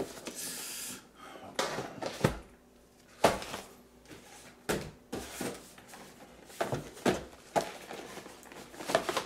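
Cardboard-and-plastic action-figure window boxes being shuffled and handled: a short sliding rustle at the start, then a string of light knocks and taps as boxes are picked up, set down and bumped together.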